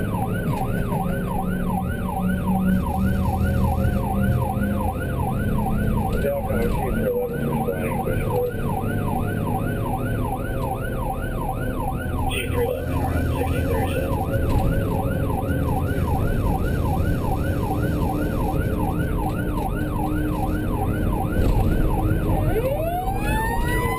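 Emergency vehicle siren on a rapid yelp, sweeping up and down about three times a second, over the low rumble of the vehicle driving on the road. Near the end a second siren tone starts and climbs steadily in pitch.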